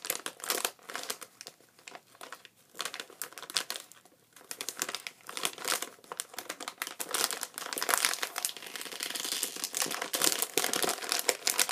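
Plastic cotton candy bag crinkling as it is handled and tugged at, trying to get it open. Irregular crackles, sparse at first with a brief lull, then denser and louder in the second half.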